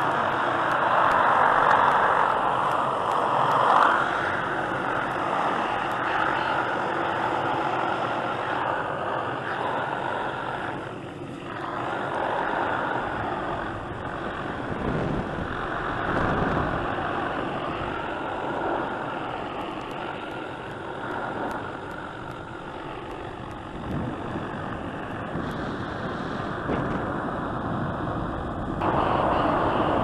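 Helicopter noise heard from right beneath it, from a lineman suspended on a line below the aircraft: a steady, loud rushing din with a few low thumps partway through.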